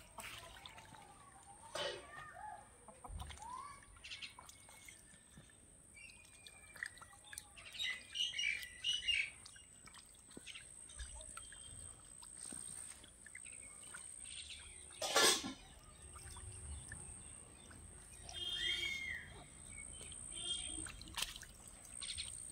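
Birds chirping in short scattered calls, with soft water sounds from domestic ducks dabbling in a shallow muddy puddle. A brief sharp noise stands out about fifteen seconds in.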